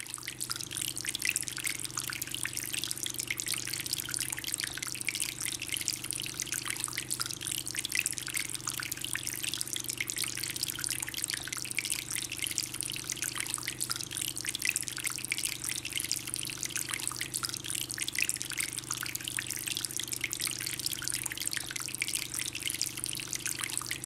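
Water trickling and dripping steadily from tier to tier of a bamboo tabletop fountain into its basin, with a steady low hum underneath.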